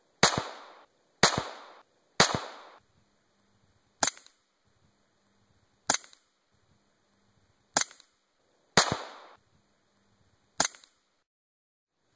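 Sig Sauer Mosquito .22 Long Rifle pistol fired unsuppressed: eight sharp shots at uneven intervals, the first three about a second apart, several followed by a short trailing echo.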